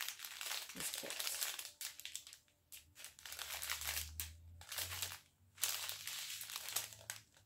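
Plastic packaging crinkling and rustling as it is handled, in several bursts with short pauses between them.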